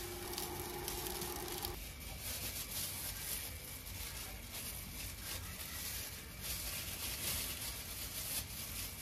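Fried rice sizzling in a pan over a steady hum that cuts off suddenly about two seconds in. Then thin disposable plastic food gloves rustling and crinkling as they are handled and pulled on.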